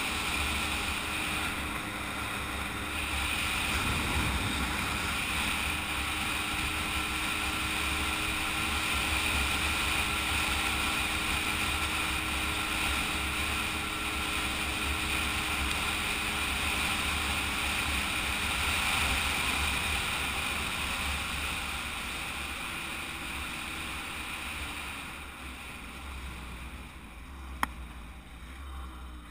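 Kreidler two-stroke moped engine running at a steady cruising speed, with wind noise over the microphone. It eases off and quietens near the end, with one sharp click.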